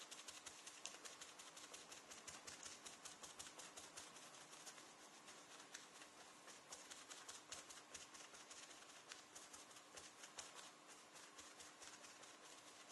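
Faint, rapid patter of leather dye being dabbed onto a leather jacket, several light dabs a second, kept up without a break.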